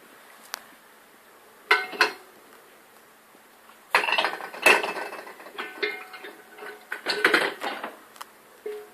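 Dishes and cutlery clinking and clattering as they are handled and unloaded from the dishwasher racks after the wash cycle. A few single clinks come first, then busier runs of clatter about four seconds in and again around seven seconds.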